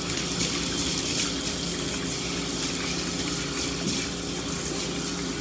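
BathMaster dog-bathing system's pump humming steadily while water sprays from its hose onto a dog's short coat during rinsing.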